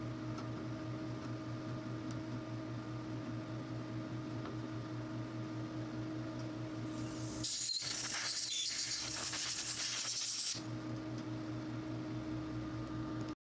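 Steady machine hum made of several fixed tones. A little past halfway, a loud hiss of spray lasting about three seconds.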